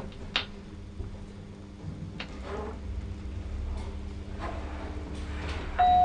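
Old Bennie passenger lift travelling up between floors: a steady low hum of the car in motion, with a few sharp clicks. Near the end the two-tone arrival chime begins to ring as it reaches the floor.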